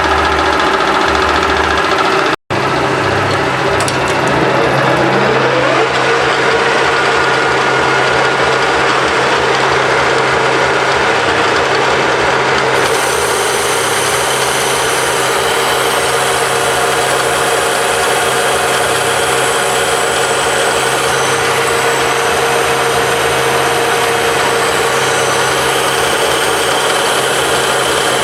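Metal lathe running with a steady mechanical hum and whine. There is a brief break about two and a half seconds in, then a whine rising in pitch for a couple of seconds before it settles to a steady tone.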